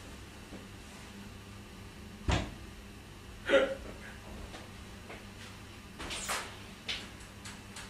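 Scattered knocks and clunks of things being handled, the loudest a sharp thud about two seconds in, then a few lighter knocks and ticks, over a low steady hum.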